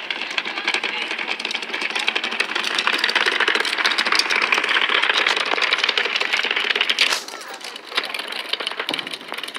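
Fireworks crackling: a dense, rapid run of small pops that stops abruptly about seven seconds in.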